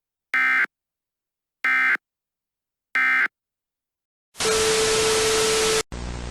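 Emergency Alert System end-of-message code: three short identical data-tone bursts about a second and a quarter apart, which mark the close of the alert. About four seconds in, loud static with a steady low tone starts, then drops abruptly to quieter static with a hum near the end.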